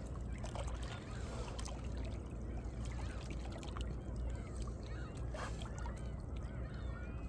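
Small sea waves lapping and sloshing in the gaps between shoreline rocks, with short gurgles and splashes throughout.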